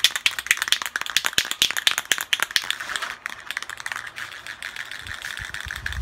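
Aerosol spray paint can being shaken, its mixing ball rattling rapidly inside; the rattling thins out after about three seconds.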